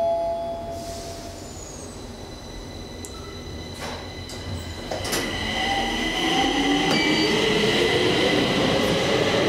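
Metro train pulling out of the platform: the whine of its motors climbs steadily in pitch and grows louder from about halfway through as it picks up speed, with a couple of clicks before it.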